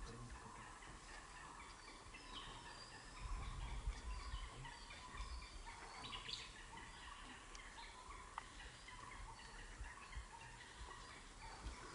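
Faint outdoor ambience with scattered bird calls and chatter throughout, and a low rumble about three to five seconds in.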